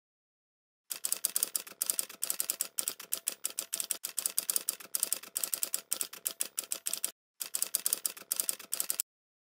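Typing sound effect: rapid key clicks, starting about a second in, with a short break just after seven seconds and stopping shortly before the end.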